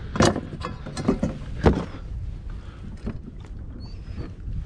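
A few sharp knocks and thumps on a kayak in the first two seconds, the loudest about a second and a half in, then a quieter steady wash of water and wind.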